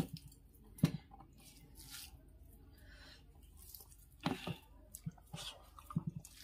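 A hand mixing and squishing soft boiled rice on a steel plate, with chewing. A few short sharp clicks and smacks stand out, about a second in and again around four and six seconds.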